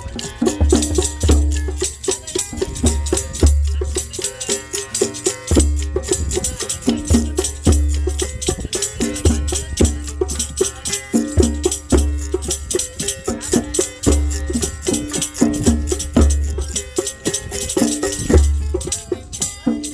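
Rhythmic percussion-led music: low drum or bass notes repeating about once a second under continuous jingling, rattling hand percussion.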